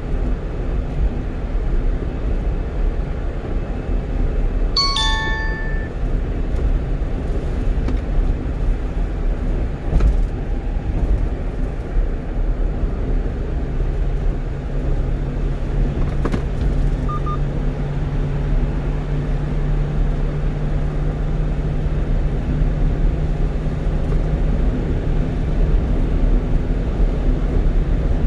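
1-ton truck cruising at highway speed, heard from inside the cab: steady engine and tyre noise. A short electronic chime sounds about five seconds in. A low steady hum joins about halfway through and fades near the end.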